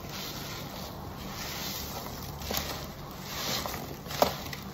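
Wet perforated car wash sponge squeezed and kneaded in gloved hands, working laundry gel detergent into thick lather: soft squishing and rubbing with fizzing foam, and a sharp wet click near the end.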